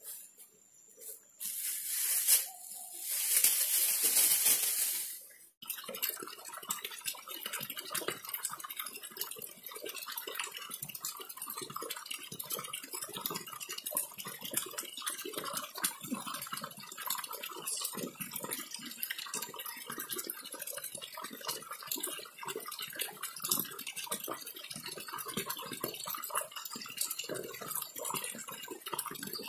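A loud rushing hiss for a few seconds near the start, then, after an abrupt cut, the steady trickling and babbling of a flowing stream with a dense crackle of small splashes.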